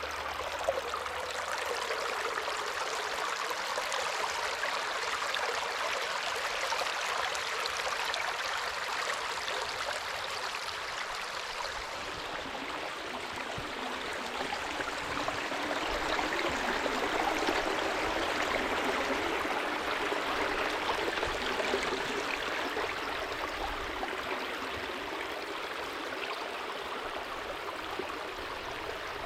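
A creek running, a steady rush of flowing water.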